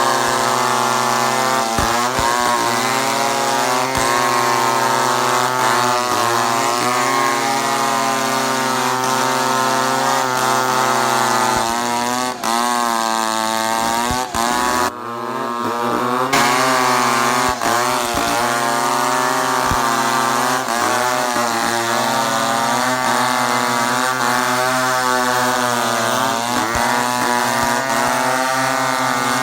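Two-stroke chainsaw running continuously, its engine pitch wavering up and down again and again as it is throttled and loaded in the wood.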